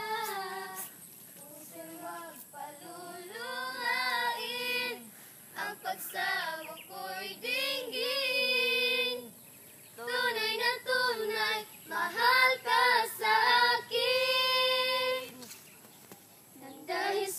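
Young voices singing a Tagalog love song together, unaccompanied, carrying the melody with long held notes through the interlude between choruses without clear words.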